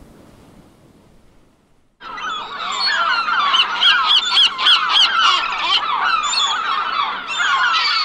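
Ocean surf fading out over the first two seconds, then, after a moment's silence, a flock of seagulls calling loudly over one another: the timer's alarm signalling that the countdown has ended.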